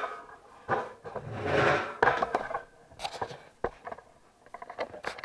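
Handling noise as the camera and the cardboard boxes and cards on the table are moved: a rub lasting about a second near the start, then scattered light knocks and small clicks.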